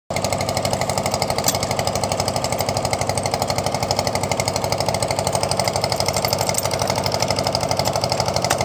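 A small engine running steadily, with a fast, even knocking pulse of about ten beats a second.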